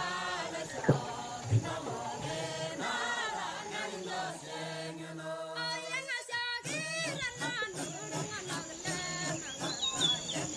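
Several voices chanting or singing together, with wavering pitches over a steady low drone. Two short low thumps come about a second in.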